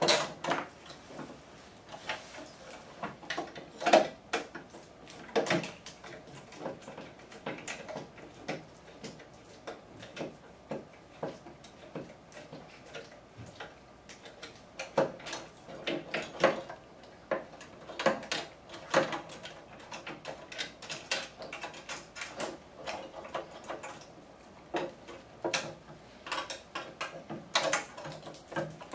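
Irregular light clicks, taps and small metal knocks from a hand tool and copier parts as the quarter-inch bolts holding a thermal copier's bulb assembly are unscrewed.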